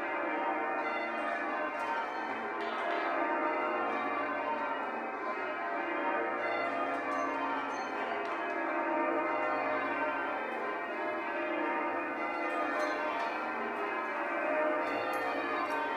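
Change ringing on a ring of church bells: a continuous, even run of bell strokes with no break.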